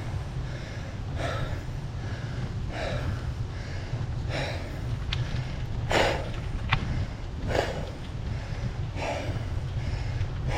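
Cyclist's heavy, laboured breathing while pedalling a mountain bike up a steep climb, one hard breath about every second and a half over a steady low rumble.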